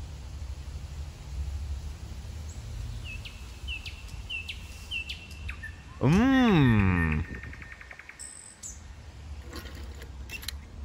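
Small birds chirping, with a run of short, evenly repeated chirps in the middle. About halfway through, a louder sound lasting a bit over a second glides up in pitch and then back down.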